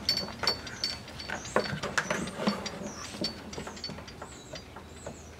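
Scattered plastic clicks and knocks as hands work a cable through a hole in a plastic kayak's gunwale. Short high ticks and chirps repeat in the background.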